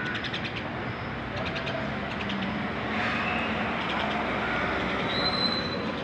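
Steady street traffic noise, swelling as a vehicle passes from about three seconds in, with several short bursts of rapid high bird chirping. A brief high whistle-like note comes near the end.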